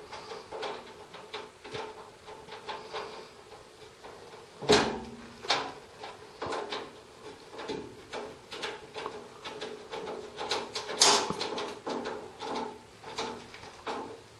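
Irregular metal clicks, taps and knocks of hands and tools working wires and breakers inside an open steel circuit breaker panel, with two louder sharp knocks about five and eleven seconds in, over a faint steady hum.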